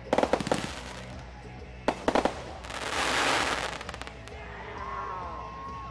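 Fireworks going off: a quick cluster of sharp bangs at the start and a few more about two seconds in, then a loud rushing, crackling hiss lasting about a second. A held, wavering pitched tone comes in near the end.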